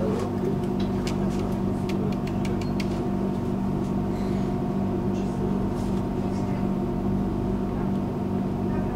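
Steady electrical hum inside a tram, holding a fixed pitch, with a quick run of sharp clicks in the first three seconds.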